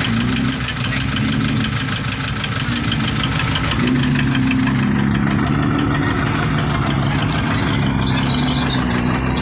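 A vehicle engine running steadily, with a fast, even clatter over it that stops about five seconds in.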